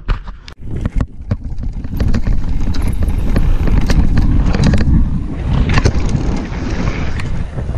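Mountain bike descending fast on a loose dirt and gravel trail: a steady rush of wind on the microphone and tyre rumble, dotted with sharp rattles and knocks from the bike. A few separate knocks come first, and the rush starts about two seconds in.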